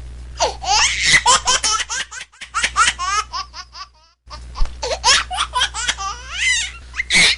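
Loud, high-pitched laughter in rapid peals, broken off completely for a moment about four seconds in, with a sharp loud burst near the end.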